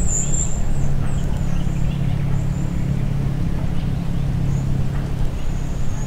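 A vehicle engine running steadily with a low hum, with a few short high chirps near the start and again about five seconds in.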